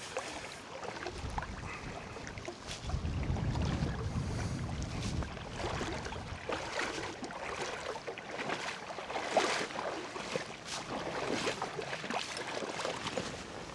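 Someone wading through a river toward the bank, with water sloshing and splashing irregularly around the legs.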